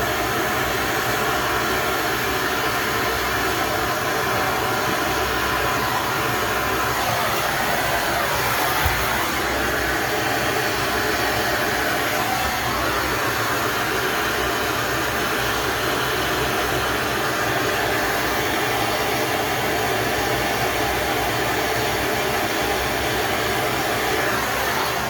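Gas soldering torch burning at full flame with a steady, loud roar while heating a 35mm copper pipe fitting for soldering with lead-free solder. It cuts off suddenly at the end.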